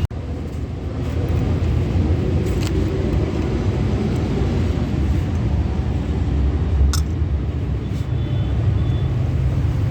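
Steady low rumble of motor vehicles, with a few sharp clicks scattered through it.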